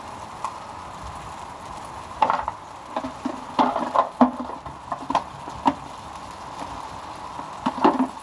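Food sizzling in a frying pan, with a run of sharp clinks and knocks of a utensil against the pan from about two seconds in.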